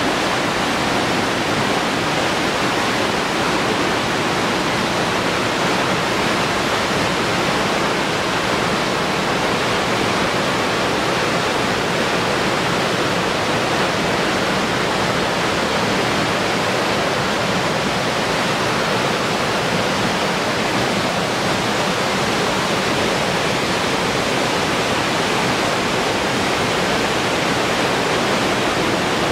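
The Aare river rushing through rapids over boulders: a steady, loud wash of whitewater that does not change.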